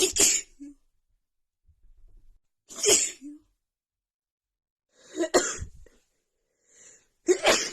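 A person with a head cold sneezing in a fit: four sharp sneezes about two and a half seconds apart, the first right at the start, with a quick breath drawn in before the last.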